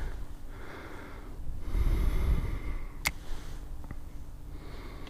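A man breathing hard close to the microphone, two long breaths, winded from running after fish. A single sharp click about three seconds in.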